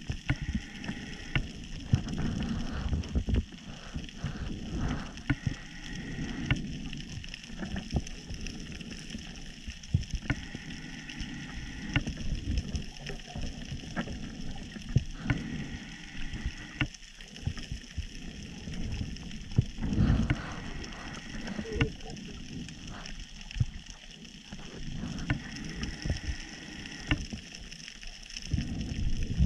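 Underwater reef ambience: a continuous irregular crackle of sharp clicks from snapping shrimp, over an uneven low rumble of water movement.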